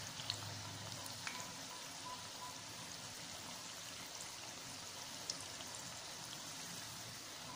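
Onion bhajis deep-frying in hot oil in a steel kadai: a steady sizzle with a few faint pops.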